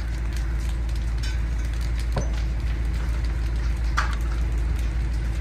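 House fire burning fiercely, with scattered crackles and pops over a steady low rumble.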